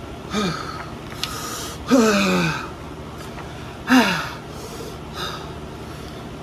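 A person gasping and letting out three short groans that fall in pitch, about two seconds apart, the loudest about two seconds in, with sharp breaths between them. A pained reaction to the burn of a super-hot chili chip.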